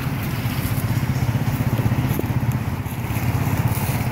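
Steady low rumble, with faint scattered ticks above it.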